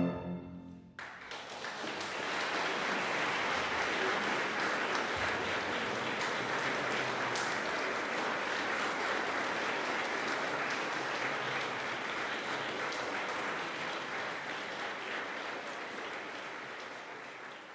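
The last chord of a piano trio (piano, violin and cello) rings away in the hall. About a second in, the audience breaks into steady applause, which thins out near the end.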